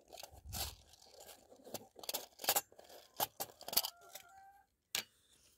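Metal tin of airgun pellets being handled and its lid opened: an irregular run of small clicks, scrapes and rattles of metal on metal.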